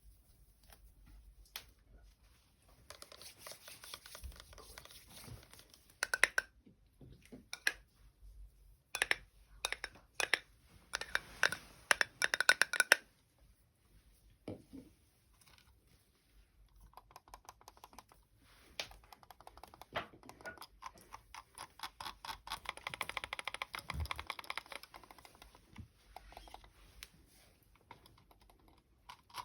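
Quick runs of sharp tapping and clicking, like fingers tapping or typing on hard objects for ASMR, in separate bursts with short pauses; the loudest taps come in clusters in the first half, then a long dense run of rapid clicks near the end.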